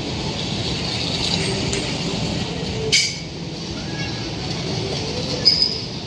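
Bumper cars running around the rink floor with a steady rumble, a sharp knock about three seconds in and another short knock near the end.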